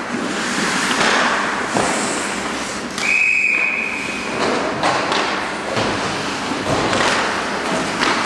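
Ice hockey rink noise, with scattered knocks of sticks, puck and boards over a steady hiss of skating. About three seconds in comes one short blast of a referee's whistle stopping play.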